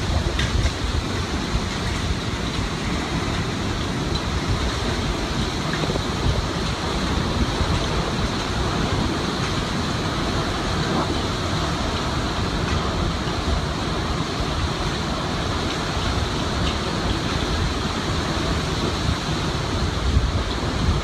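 Hurricane-force wind and wind-driven rain, a steady rushing noise, with gusts buffeting the microphone in a low, rumbling flutter.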